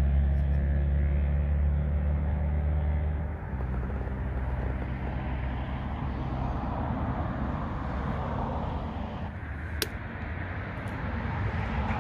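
Low, steady motor drone with a clear pitch that cuts out about three and a half seconds in. It is followed by a rushing noise like traffic that swells and fades, and a single sharp click near the end.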